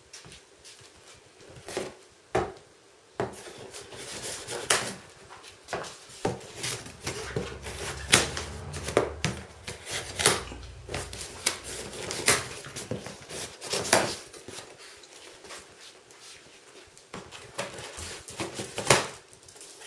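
Plastic packing straps around a cardboard box being cut through with a knife one after another: an irregular string of sharp snaps and clicks, with the cardboard being knocked and handled in between.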